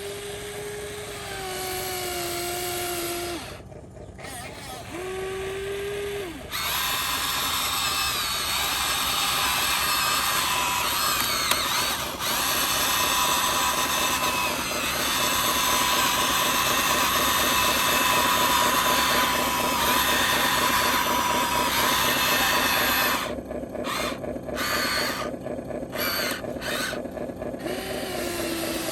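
Electric motors and gearboxes of a radio-controlled construction model whirring. A whine sags in pitch twice in the first few seconds, then a louder, steady whirr runs from about six seconds in and breaks into short stop-start spurts near the end.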